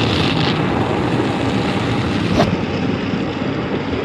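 Automatic tunnel car wash machinery running steadily, heard from inside the car, with one sharp click a little past halfway.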